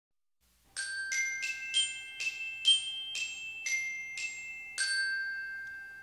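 A short melody of about ten bell-like glockenspiel notes, struck a little under half a second apart. Each note rings and fades, and the last one rings out longest.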